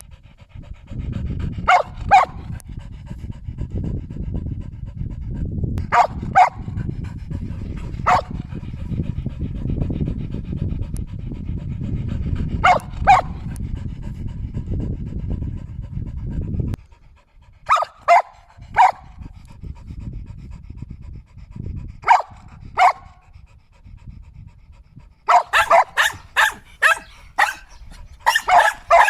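Shetland sheepdog panting hard, with a sharp single or double bark every few seconds; the panting stops a little past halfway, and near the end the dog breaks into a quick run of barks.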